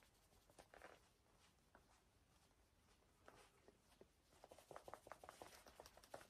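Near silence with the faint rustle and light scratching of a cotton rag pad rubbing shellac onto a walnut screwdriver handle held in the hand; a cluster of soft ticks and rubs comes about four and a half seconds in.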